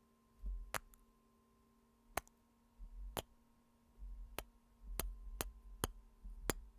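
Close-miked kisses: about eight short, sharp lip smacks spaced irregularly, several with a soft low thump of breath on the microphone.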